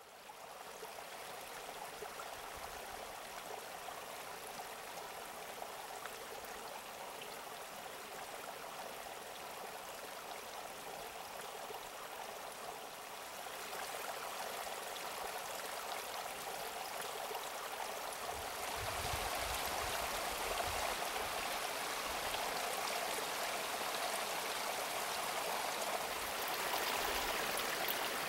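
Running water at a hot spring: a steady rushing that grows louder about halfway through and again a few seconds later, with a few low rumbles.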